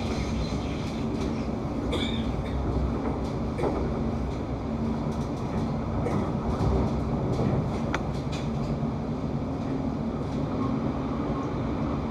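London Overground Class 710 electric multiple unit running along the line: a steady rumble of wheels on rail with a low hum, broken by a few faint clicks.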